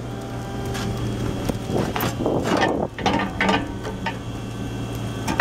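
Caterpillar 303CR mini excavator's diesel engine running steadily, with several surges of hydraulic noise and sharp metallic clanks as the boom and dozer blade move.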